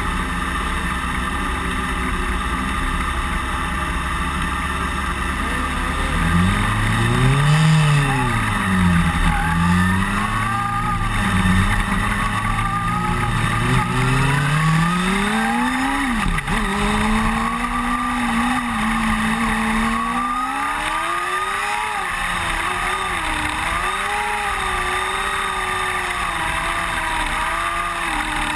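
Small open-wheel dirt-track race car's engine heard from on board, over a steady rush of engine and wind noise. From about six seconds in, the engine's pitch rises and falls again and again as the car accelerates down the straights and lifts for the turns.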